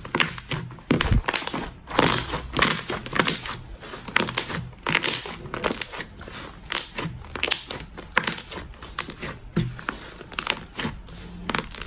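Slime being squeezed and pressed by hand: a dense, irregular run of sticky crackles, pops and clicks.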